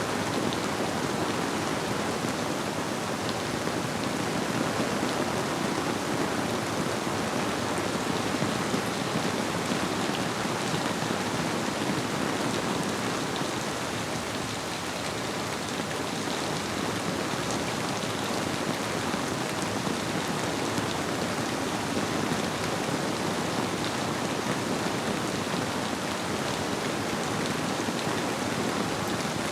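Steady rainfall, a dense patter of many drops, blended with the rush of a flowing river.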